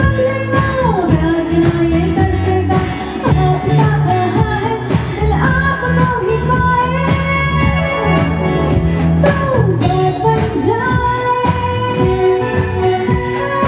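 A woman singing a song with a band behind her: bowed violins and other instruments over a steady beat.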